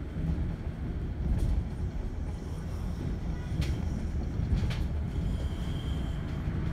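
Double-decker bus on the move, heard from inside the upper deck: a steady low engine and road rumble, with three sharp rattles or clicks from the bodywork.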